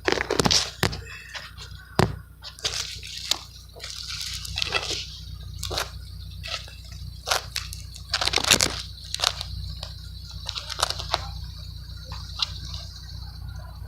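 Honda Civic R18 1.8-litre four-cylinder running at idle, heard as a steady low rumble at the tip of a DNA Motoring 2.5-inch catback exhaust with its silencer in, very quiet. Irregular sharp clicks and pops sound over it.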